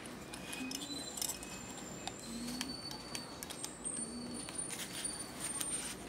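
Faint clicks and light metallic handling as a circuit board is pushed into a spring-loaded metal PCB holder and clamped in place.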